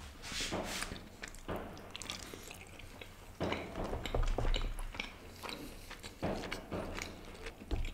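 Close-miked chewing and wet mouth sounds of a man eating stuffed kulcha bread, with small irregular clicks. About three and a half seconds in there is a louder rustle and low bump as a plastic takeaway food tray is handled.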